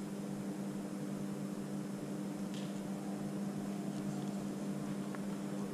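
Steady low hum at a few fixed pitches, with a brief faint scuff about two and a half seconds in.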